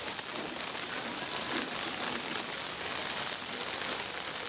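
Heavy rain falling steadily onto a flooded street, an even hiss with no breaks.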